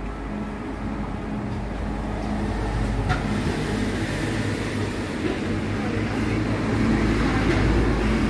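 Steady low rumble of street traffic and shop ambience, slowly growing louder, with a single short click about three seconds in.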